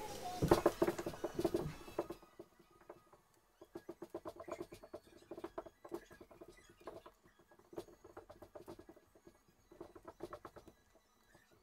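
Runs of quick small clicks from a computer mouse, its buttons and scroll wheel worked in short bursts with brief pauses between, loudest in the first two seconds.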